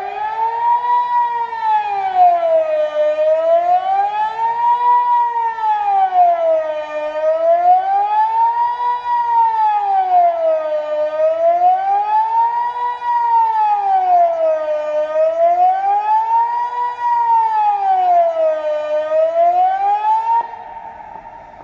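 Civil-defence siren, which a viewer identified as a Kockum Sonics Delta-4, sounding the Swiss general alarm. It is loud, and its pitch rises and falls in a slow wail about every four seconds. It cuts off suddenly near the end.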